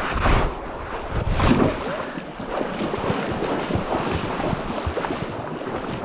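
Shallow river water splashing and swirling around a wading angler's legs, with wind rumbling on the microphone.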